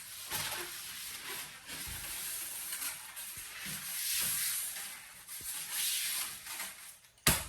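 Subfloor board being pushed and worked down into place on the bus floor, rubbing and scraping in uneven strokes, with a sudden sharp knock near the end.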